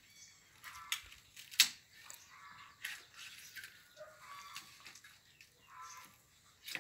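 Large kitchen knife cutting into a raw whole chicken on a wooden chopping block: short scraping strokes with a few sharp knocks, the loudest about one and a half seconds in.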